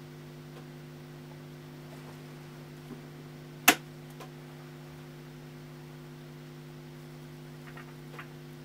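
Steady mains hum from the amplified hi-fi playback chain. It is broken by one sharp click about three and a half seconds in and a few faint ticks as the home-made turntable's tonearm and plinth are handled.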